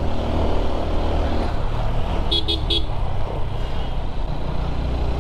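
Motorcycle engine running steadily under way. About two seconds in, three quick horn beeps sound.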